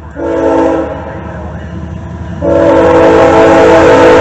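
CSX freight locomotive's air horn sounding a chord of several tones as it approaches a grade crossing. A short blast comes just after the start, then a long blast begins about halfway through and is held, louder.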